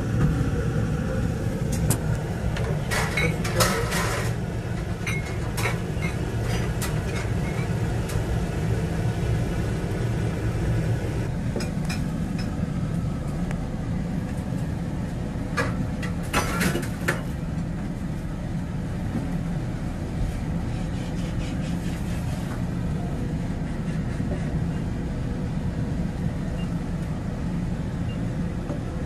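Wooden spatula stirring spinach in a nonstick wok and lifting it onto a plate, with clusters of scrapes and knocks a few seconds in and again just past halfway, over a steady low rumble.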